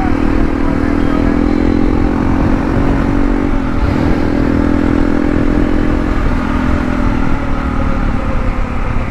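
Hero Impulse's single-cylinder engine running steadily under way, heard from the bike over a steady low rumble of wind and road noise. Its note breaks off briefly twice, about three and a half and six seconds in, then picks up again.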